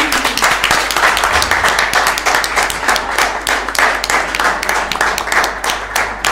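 Applause from a small audience: many hands clapping densely and steadily.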